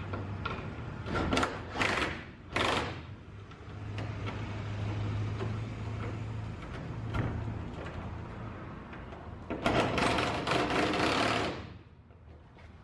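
Cordless power drill running in three short bursts a second or two in, then in one longer run of about two seconds near the end, working on the trailer door's aluminium sheet.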